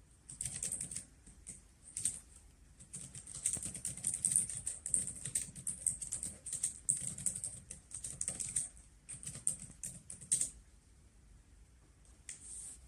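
Fingers typing on a laptop keyboard: a quick, irregular run of key clicks that stops near the end.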